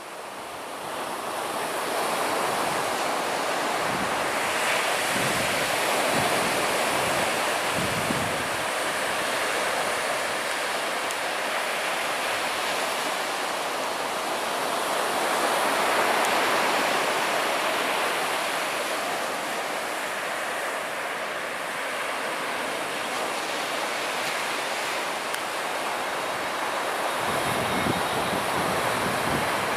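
Surf washing onto the beach in slow swells, with wind buffeting the microphone. Near the end, the low rumble of an airliner on landing approach comes in.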